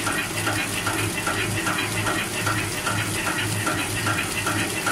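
Flour-clay flow-wrap packing machine running at speed, its wrapping and sealing cycle repeating in an even rhythm about two to three times a second over a steady motor hum.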